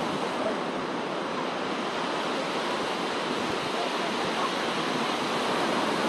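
Sea surf on a sandy beach: a steady rush of waves washing in.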